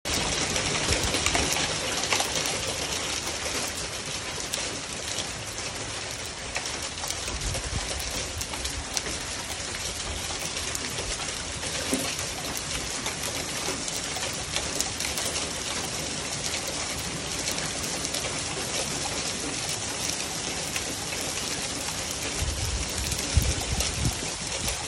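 Small hail falling steadily, a dense patter of countless tiny pellet impacts.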